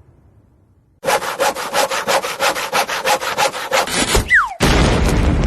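Cartoon sound effect of a saw cutting wood with fast, even back-and-forth strokes, about six a second, starting about a second in. Near the end comes a short falling whistle, then a loud noisy rush.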